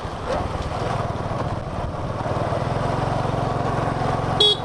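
Motorbike engine running steadily on the move. A horn beeps twice, short, near the end.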